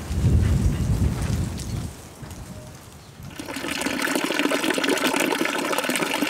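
A low rumble for the first two seconds, then, from about three seconds in, water running steadily from a metal fountain spout in a thin stream and splashing below.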